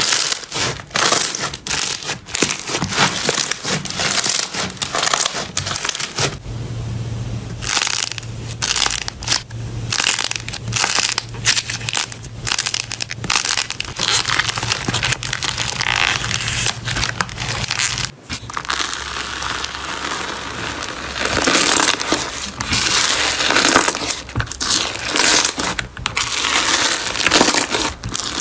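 Slime being squished and pressed, giving many quick, irregular crackling pops and squelches, with a short break about two-thirds of the way through.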